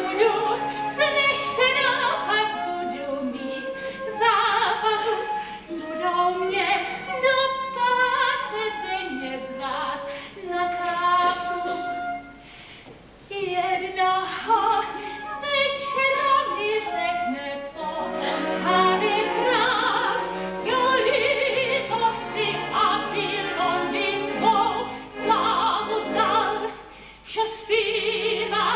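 A woman singing a musical-theatre number in Czech in a trained, operatic voice, with orchestra accompaniment, in a live stage recording. She pauses briefly about halfway through.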